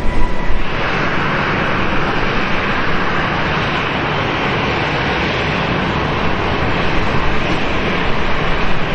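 Twin jet engines of a Boeing 737 taxiing at low thrust: a steady hiss with a whine. A louder low rumble cuts off within the first second.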